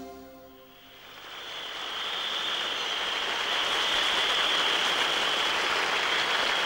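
Concert crowd applauding and cheering: a steady wash of clapping that swells up about a second in, after the singing and music drop away.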